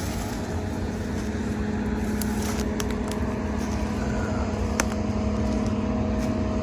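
Steady engine hum, one constant drone with a low rumble beneath, with a few light clicks.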